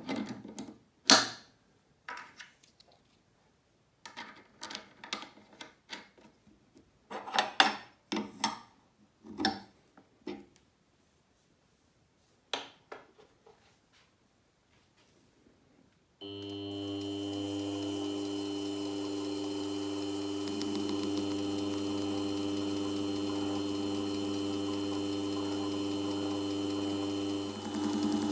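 Light metal clicks and taps from small parts and tools being handled, scattered over the first dozen seconds. Then, about sixteen seconds in, an electric bench machine starts and runs steadily with a constant hum and a high tone.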